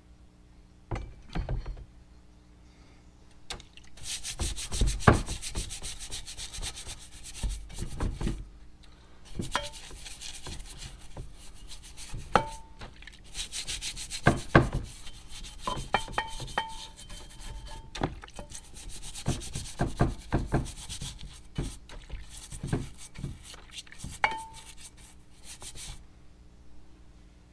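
Rapid back-and-forth scrubbing of meat grinder parts in several bouts of a few seconds each. Sharp knocks and short ringing metal clinks are scattered through it as the parts are handled.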